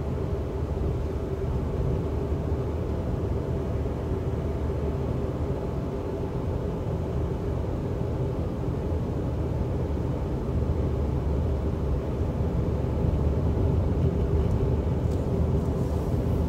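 Steady cabin drone of a Lifan X60 Talent SUV cruising on the highway: engine and tyre noise, low and even, growing slightly louder over the last few seconds.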